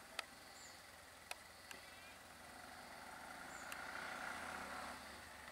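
Faint engine of an auto-rickshaw (tuk-tuk) driving past, growing louder about halfway through and easing off near the end, with a few short, sharp clicks.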